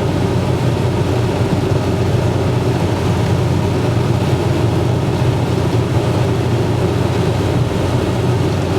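Steady noise inside a car's cabin at highway speed, about 130 km/h, in rain: tyres on the wet road and rain and wind against the car.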